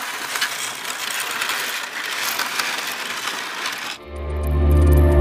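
Dense crackling, clicking sound effect. About four seconds in it cuts off abruptly, giving way to music with a deep bass that swells louder.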